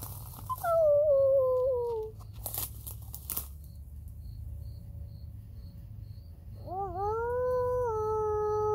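People howling in imitation of wolves. The first howl, about half a second in, slides steadily downward and lasts about a second and a half. After a pause, a second howl begins near the end: it rises, then holds steady with a slight dip.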